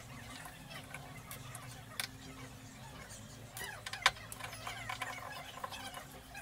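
Screwdriver turning out the mounting screws of a desk caster: scattered light metal clicks and scrapes, with a sharp click about two seconds in and a louder one about four seconds in, over a steady low hum.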